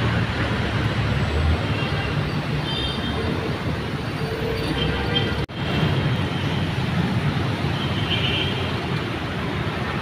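Steady city road traffic noise, a constant rush of passing vehicles, which breaks off for an instant about five and a half seconds in.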